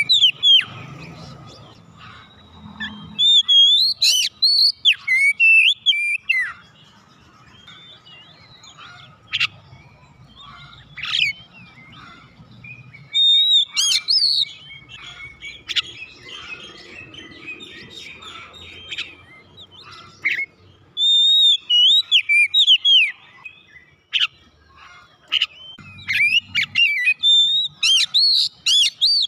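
Oriental magpie-robin (kacer) singing: bursts of loud, rapid whistled phrases with sharp rising and falling notes, broken by pauses of a few seconds.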